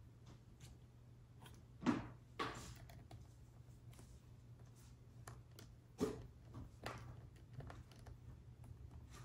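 Faint clicks and light taps of a small screwdriver turning the tiny M.2 SSD retaining screw into an open laptop, with a few louder handling knocks about two and six seconds in. A low steady hum runs underneath.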